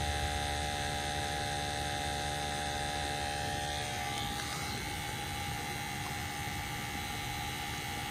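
Peerless gas-fired boiler running with its burners lit and burning cleanly: a steady hum over a low rumble.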